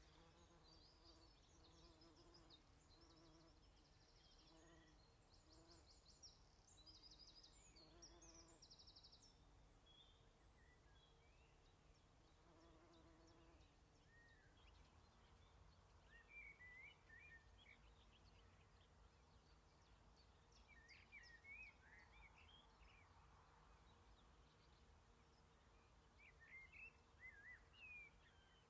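Faint woodland ambience with birds calling: a repeated high trill in the first third alongside short low hums, then scattered short chirps later on.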